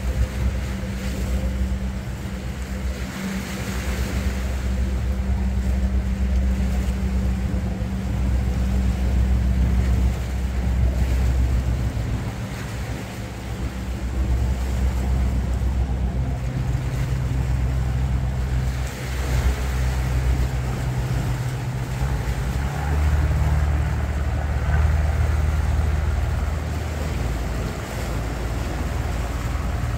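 Wind rumbling on the microphone over sea swell washing against the rocks, with the engine of a small fishing boat running past across the water.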